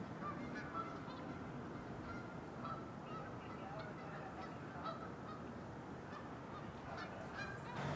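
A flock of geese calling, with many short honks scattered throughout, over a low steady rumble.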